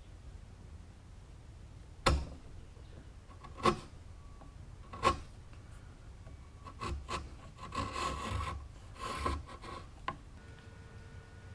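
Hand tools working wood: three separate sharp knocks, then a run of rasping, scraping strokes on the wood and a final click.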